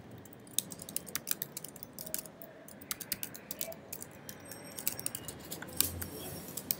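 Computer keyboard being typed on: irregular, quick key clicks as a line of code is entered, with a few sharper strikes.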